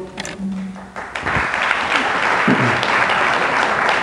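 Audience applauding, the clapping swelling in about a second in and then holding steady.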